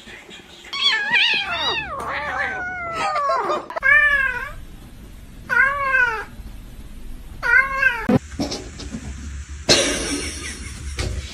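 A cat meowing over and over: a quick run of overlapping, falling meows, then three single meows about two seconds apart, each rising then falling. A brief noisy burst follows near the end.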